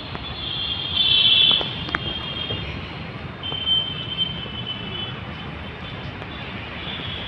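Outdoor background noise: a steady low rumble with a thin high-pitched whine that comes and goes, loudest about a second in.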